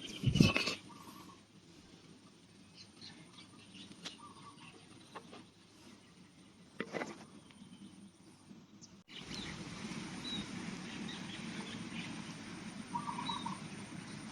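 A single sharp, loud pop about half a second in, then small birds chirping here and there over faint background noise; at about nine seconds the background steps up abruptly to a louder steady hiss, with more chirps.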